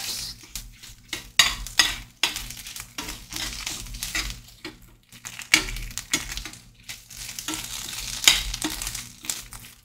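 Metal spoon stirring and scraping onions, garlic and tomato paste in a hot stainless steel frying pan, with the food sizzling. Irregular scrapes and clinks of spoon on pan come every fraction of a second.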